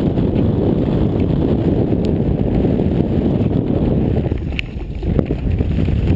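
Wind buffeting the camera microphone over the rumble and rattle of a mountain bike riding fast down a dirt singletrack. The noise is steady, then dips briefly with a sharp click a little past the middle.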